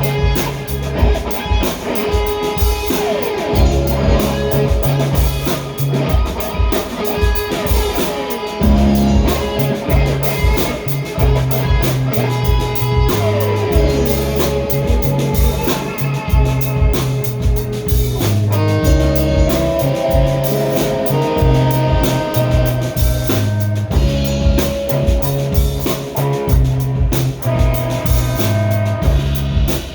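A band playing: guitar with gliding, sliding notes over steady bass notes and a drum kit keeping a regular beat.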